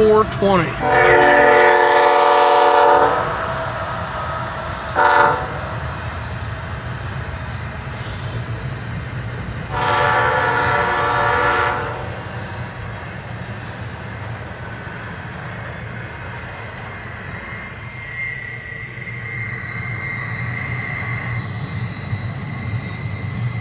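CSX freight train passing, its lead diesel locomotive sounding the horn: a long blast, a short one, then another long one. Between and after the blasts, the steady low rumble of the locomotives and the double-stack container cars rolling by. A faint high steady whine comes in near the end.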